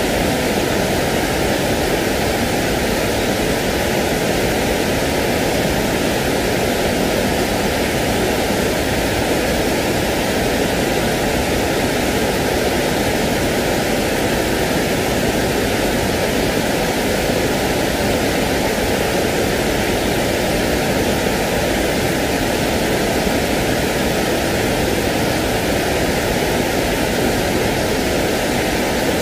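Steady, unchanging noise, like pink or white noise, with no drops, clicks or rhythm: a sleep-aid hiss played to soothe a baby.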